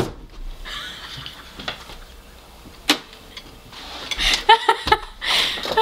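A sudden loud bang meant to startle, then a single sharp click about three seconds in, then a woman laughing near the end.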